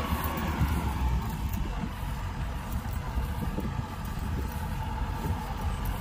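Kubota combine harvester running steadily, a low engine rumble with an even mechanical noise over it.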